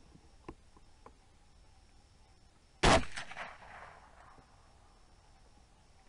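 A single rifle shot about three seconds in, with an echo trailing off for about a second after it.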